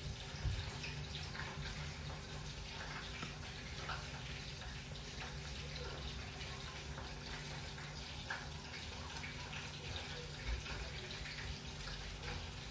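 Steady low hiss with a faint hum underneath, the background noise of a kitchen with the stove going.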